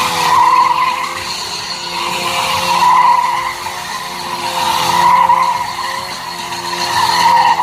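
KTM Duke motorcycle engine running at steady high revs with tyre skidding, the sound swelling and fading about every two seconds.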